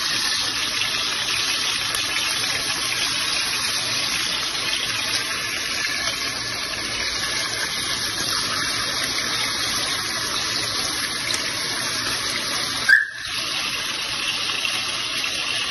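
Halved potatoes frying in hot desi ghee in a pressure-cooker pan, a steady sizzle as they are stirred, with a brief click about thirteen seconds in.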